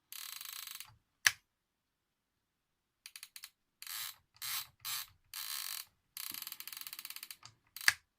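The gear train of an old Sony flip clock radio being turned round by hand in short strokes, a fast ratcheting whirr in repeated bursts. Two sharp clicks stand out, one about a second in and one near the end.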